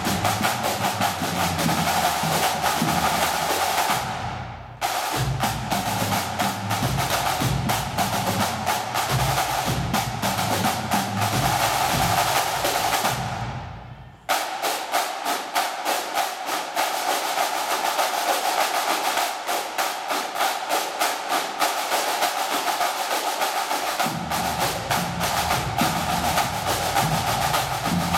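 Pipe-band drum corps playing: snare drums in fast, dense rolls and strokes, with bass and tenor drums underneath. The drumming stops dead briefly about four seconds in and again about halfway. The deep drums then drop out for about ten seconds while the snares play on, and come back in near the end.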